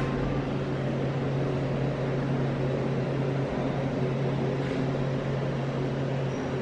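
Air-conditioning unit running: a steady low hum over an even rush of air.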